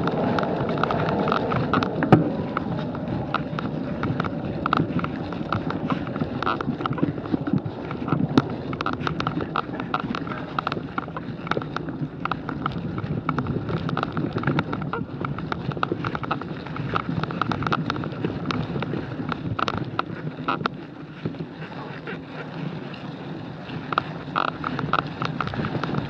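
Dry fallen leaves crunching and rustling under quick movement along a leaf-covered trail, with dense irregular ticks and jolts from the camera mount and wind on the microphone. A sharp knock about two seconds in.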